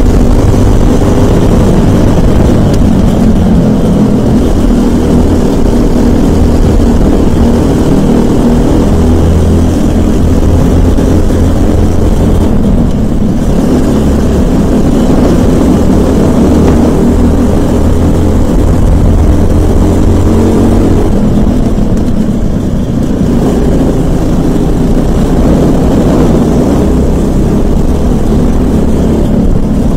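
Briggs & Stratton LO206 kart engine running hard through a race lap, heard from the driver's seat. The engine note eases briefly about halfway through and again about two-thirds of the way through, then comes back up.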